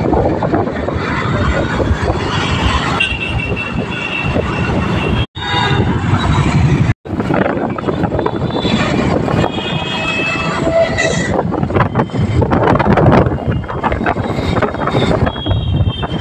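Busy street traffic heard from a moving motor scooter, with engine and road noise and wind on the microphone. Vehicle horns honk several times.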